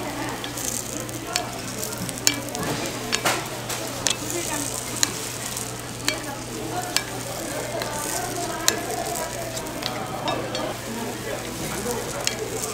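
Batter sizzling in the cups of a hot cast-iron chrysanthemum-bread mold, with sharp, irregular clicks of a metal spatula tapping the pan as red bean paste is dropped into each cup, over a steady low hum.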